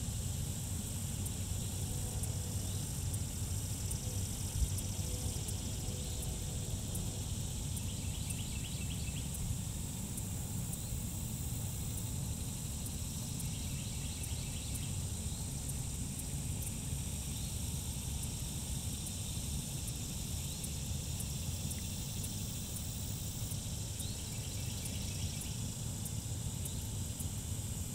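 Outdoor pond-side ambience: a steady high insect buzz over a steady low rumble, with three short rapid clicking trills spread through it and a single brief knock about four and a half seconds in.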